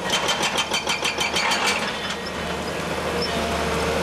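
Feeleng Fine 20 Top hydraulic breaker on an excavator hammering rock with rapid, even blows, about seven a second, stopping a little under two seconds in. The excavator's engine runs steadily underneath and is left alone after the hammering stops.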